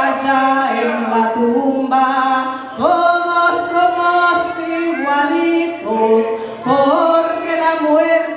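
A woman singing a religious song into a handheld microphone, amplified, in phrases of long held notes with slides in pitch between them.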